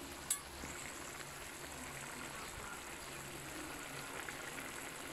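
Duck pieces sizzling in a wok on the stove: a steady, even hiss, with one sharp click about a third of a second in.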